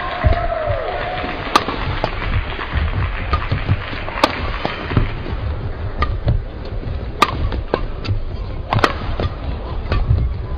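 Badminton rally: rackets striking the shuttlecock in sharp, separate cracks about every one to two seconds, with shoes squeaking on the court near the start over a steady hall rumble.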